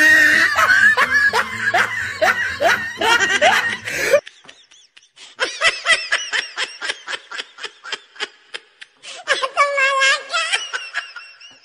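Laughter: a rapid run of laughs over background music that cuts off suddenly about four seconds in, then after a short pause a high-pitched giggling laugh in quick, evenly spaced pulses.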